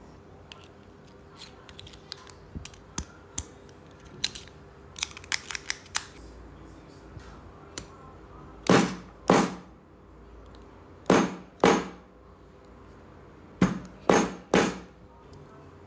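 Scattered light clicks, then seven sharp knocks, mostly in pairs about half a second apart, each ringing briefly: hard objects being handled or struck.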